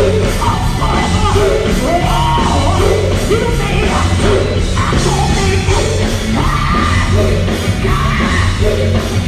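Live gospel music: a group singing with loud band backing, the voices rising and falling in pitch over a strong bass.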